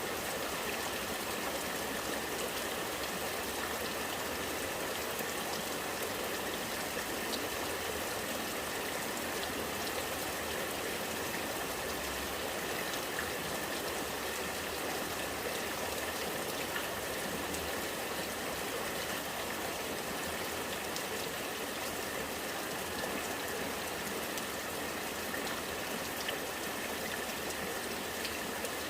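Rainwater running and gurgling steadily, with scattered small drips.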